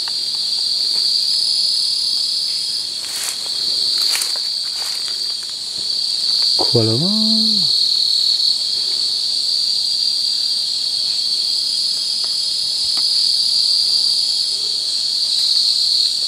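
Steady, high-pitched chorus of night insects trilling without a break. A man's voice says one short word about seven seconds in, and a couple of faint clicks come between three and four seconds.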